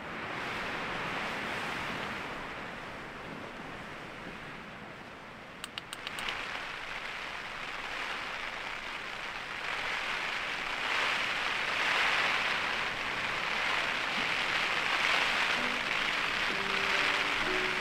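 Heavy rain falling steadily, growing louder in swells after about ten seconds, with a few quick clicks about six seconds in. Faint music notes come in near the end.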